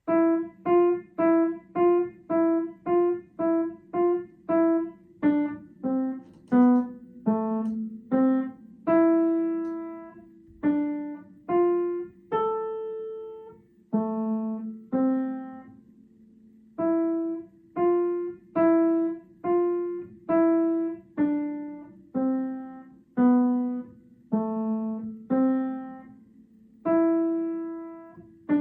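Piano playing a single-line melody one note at a time. It opens with a quick run of evenly repeated notes, then slows into longer notes that step down and back up, each struck and left to ring out.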